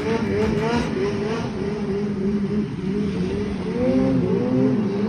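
Snowmobile engine running hard as the sled skims across open water, its pitch rising and falling over and over, with the hiss of spray from the track.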